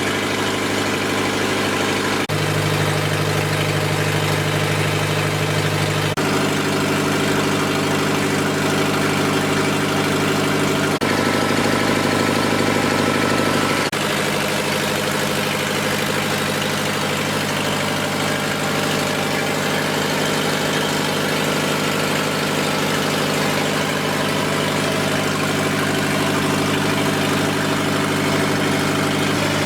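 Lister diesel generator engine running steadily and loud under a heavy electrical load of about 9 to 10 kW, with no exhaust muffler fitted. Its tone shifts abruptly a few times.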